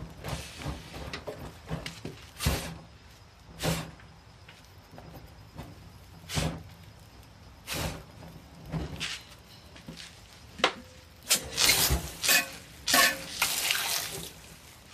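Cleaning a walk-behind lawn mower: a few separate rubbing swishes of a rag on the engine, then water spraying onto the mower in quick bursts near the end.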